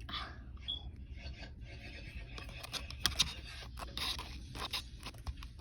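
Faint scraping and rustling, broken by scattered small clicks that are most marked around three seconds in.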